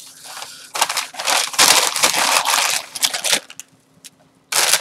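A bag crinkling and rustling as it is handled and wrapped around candle holders, in irregular crackly bursts; it stops for about a second and starts again near the end.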